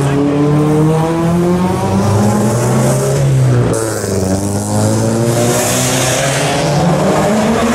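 Race car engine accelerating at close range, its note climbing steadily, dropping sharply once about halfway through and then climbing again as the car passes.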